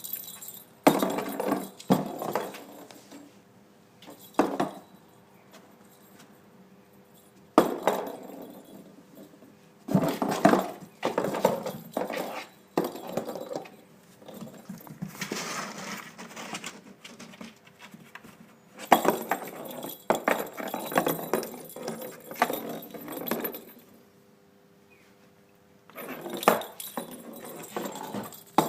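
A cat batting a toy against a wall in a cramped space: bouts of clattering knocks and rattling, each lasting one to a few seconds, with short pauses between.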